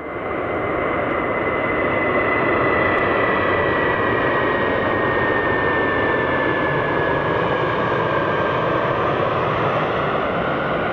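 Airbus A320-family twin-jet airliner on final approach with its landing gear down: a steady jet rumble with a high engine whine that slowly falls in pitch.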